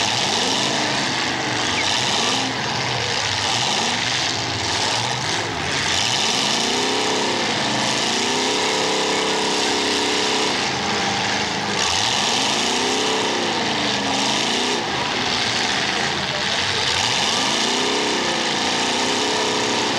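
Race car engines running laps in a feature race. The engine notes swell and fall in pitch about four times as cars come past, over a constant engine din.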